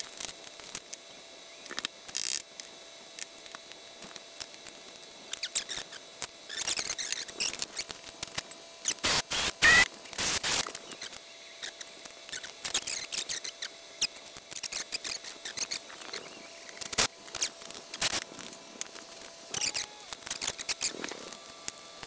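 Irregular clicks, taps and short scrapes of thin aluminium plates and small metal parts being handled and set down on a wooden workbench, busiest about nine to eleven seconds in, over a faint steady hum.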